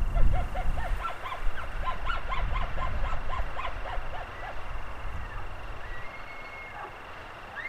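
A flock of geese honking: many short, overlapping calls for a few seconds that then thin out. A faint high held whistle comes near the end.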